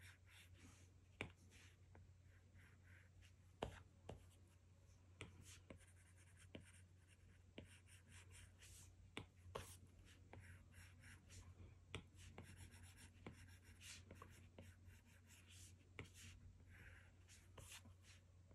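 Faint tapping and scratching of an Apple Pencil's plastic tip on an iPad Pro's glass screen as lines are drawn: irregular clicks as the tip touches down, a few each second at the busiest, with soft scratchy strokes between.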